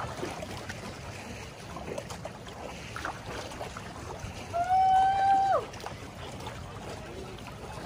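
One loud held call about a second long, about halfway through, steady in pitch and then dropping as it ends, over a steady background of lake water.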